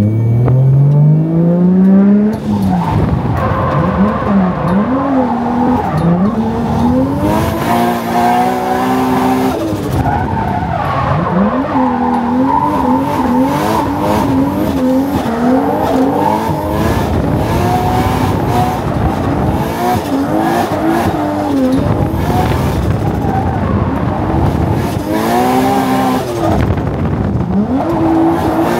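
Drift car's engine heard from inside the caged cabin, revving up and falling back again and again as it slides through mountain-road corners, with the tyres skidding and squealing. It opens with one long climb in revs over the first two seconds or so.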